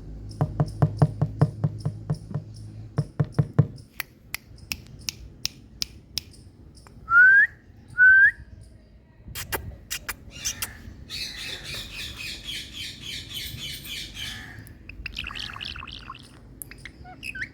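Parrot calling: a run of quick clicks, then two loud short rising whistles, followed by a few seconds of harsh, noisy chattering and a shorter burst of it near the end.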